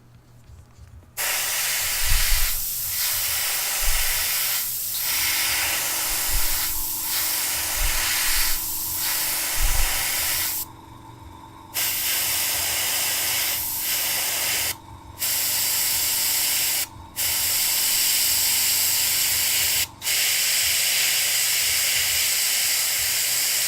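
Airbrush spraying metallic pearl paint: a steady hiss of air and paint that starts about a second in and carries on, stopped for about a second partway through and cut briefly a few more times as the trigger is let off. A few soft low bumps come in the first half.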